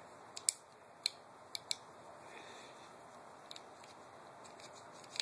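Faint, scattered clicks, about half a dozen, of the fire selector being worked and rotated in a KWA LM4 PTR airsoft rifle's lower receiver as it is coaxed out.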